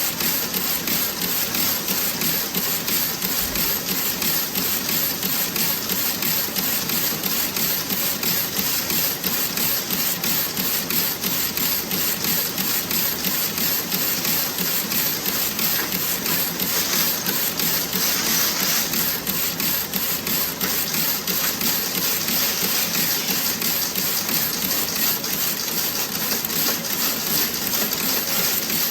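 Toe-sock knitting machine running with a rapid, steady mechanical clatter.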